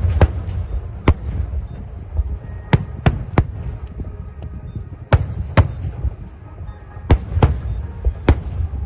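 Aerial fireworks shells bursting: about ten sharp bangs at irregular gaps of roughly a third of a second to a second and a half, each with a short echo, over a continuous low rumble.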